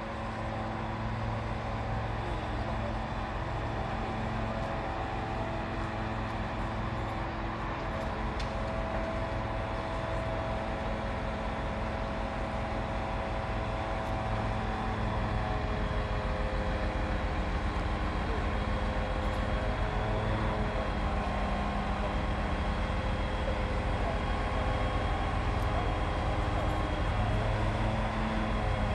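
Fire truck engine running steadily to power the hydraulics of its 22 m aerial platform as the boom is moved, with a faint high steady whine over it. It grows a little louder about halfway through.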